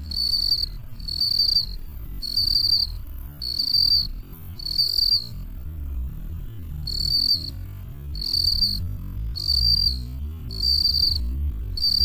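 Field cricket chirping: a high, pure chirp repeated about once every second and a quarter, ten chirps in all, with one longer pause in the middle. A steady low rumble runs underneath.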